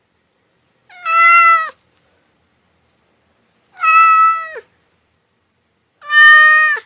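A cat meowing three times, each meow about a second long and steady in pitch before dropping at the end, with evenly spaced pauses between them.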